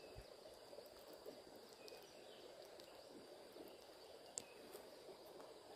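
Near silence: faint outdoor ambience with a thin steady high tone and one small click about four seconds in.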